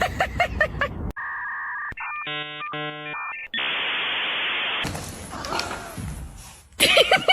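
Electronic sound effects: a steady two-tone beep, then a quick stepped run of synthetic tones, then about a second of even hiss like static.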